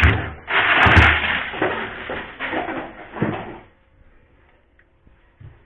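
Thick ice in a chest freezer being knocked and scraped loose by hand: several hard knocks among rough scraping noise for about four seconds, then it goes quiet.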